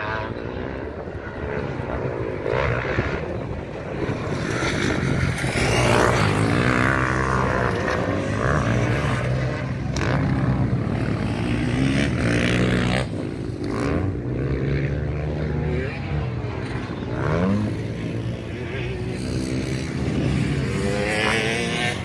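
Several motocross bikes' engines revving around the track, their pitch climbing and dropping again and again over a steady lower engine drone.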